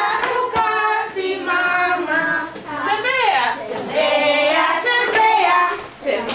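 A group of children singing a song together, with several long held notes.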